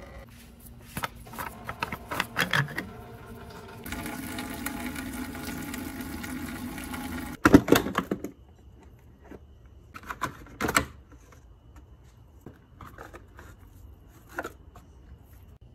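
Hard plastic engine-bay covers and trim being handled and pulled loose: a run of clicks and clatter, a steady hum for a few seconds, then a loud sharp pop and rattle about halfway through, followed by lighter knocks and clicks.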